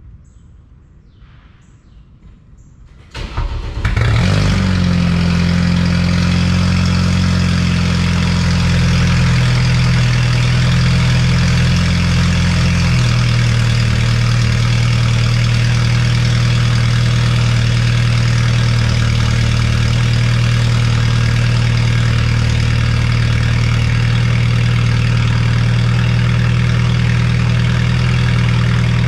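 BMW 428i Gran Coupe's N20 2.0-litre turbocharged four-cylinder engine, breathing through a DPW exhaust cutout, is started about three seconds in and runs at a raised idle. About ten seconds later the idle steps down to a lower, steady idle, loud at the tailpipes (about 94–96 dB on the meter).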